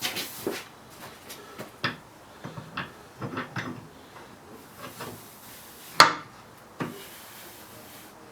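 Knocks and clatters of antique post drill parts being handled and set down during reassembly, with one sharp, loud knock about six seconds in.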